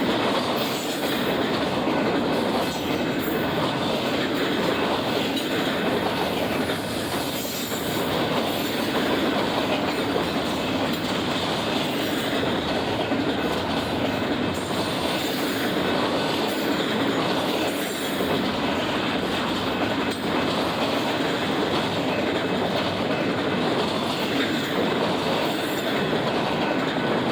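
Intermodal freight train cars rolling past: a steady noise of steel wheels on rail, with clicking over the rail joints.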